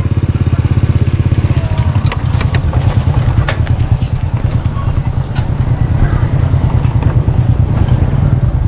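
Small motorcycle engine running at low speed, heard from the rider's seat as a steady, rapid low pulse. A few sharp clicks and short high chirps come about four to five seconds in.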